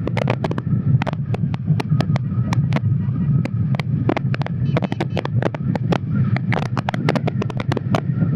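A vehicle engine running steadily on the move, with wind buffeting the microphone in frequent irregular crackles and pops.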